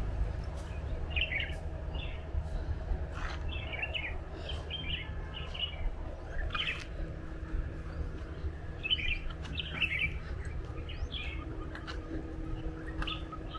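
Wild birds chirping in short, scattered bursts of high calls, over a steady low rumble, with a faint steady hum in the second half.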